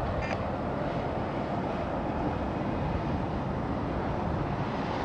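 Highway traffic passing, a steady rumble of tyres and engines from trucks and cars, with wind on the microphone. A brief high squeak sounds near the start.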